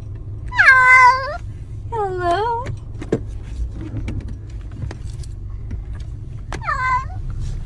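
A cat meowing three times, a long call about half a second in, a second a second later and a short falling one near the end, over a steady low rumble and a few light clicks.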